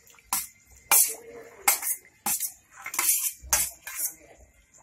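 Steel spoon clinking and scraping against a steel plate as paneer cubes are pushed off it into a kadai of gravy: about eight sharp metallic clinks in a loose, uneven rhythm.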